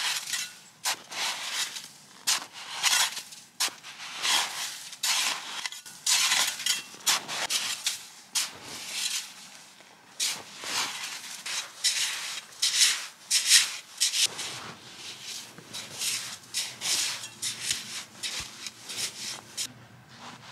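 Repeated rasping scrapes through snow, coming unevenly about once or twice a second with short pauses between strokes.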